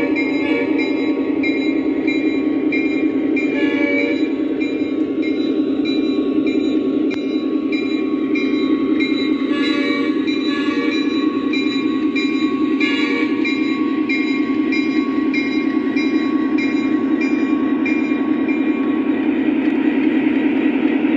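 Lionel O scale EMD SD70ACE model diesel locomotive running, its onboard sound system playing a steady diesel engine drone. Over the drone a ringing tone repeats at an even pace and stops near the end.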